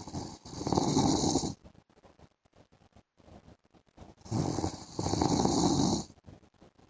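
A man snoring in his sleep: one snore at the start and another about four seconds in, each drawn in two parts, with quiet pauses between.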